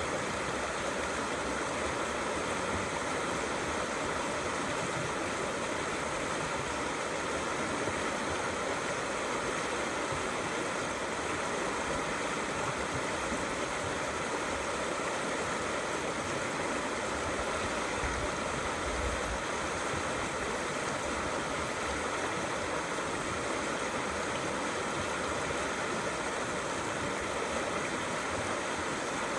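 Small river flowing, a steady rush of water.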